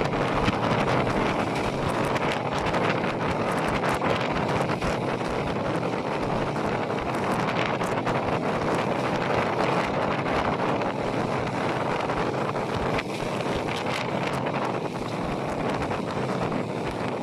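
Wind buffeting the microphone at the open window of a moving passenger train, over the steady running noise of the train on the rails.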